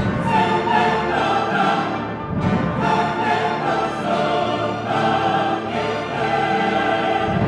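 Classical orchestral music with an operatic choir singing long held notes, at a steady level throughout.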